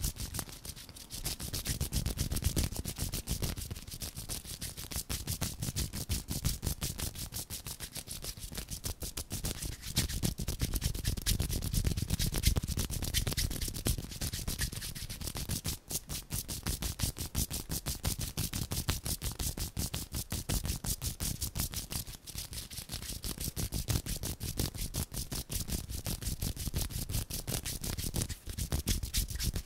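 Bare palms rubbing together close to a handheld recorder's microphone, a continuous run of fast rustling strokes.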